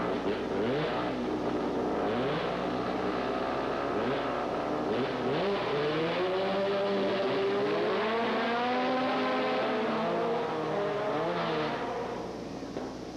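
Race car engines idling with repeated revving, the pitch rising and falling in overlapping sweeps; the engine sound drops somewhat near the end.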